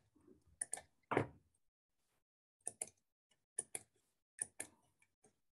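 Faint computer mouse clicks, mostly in quick pairs, coming every second or so.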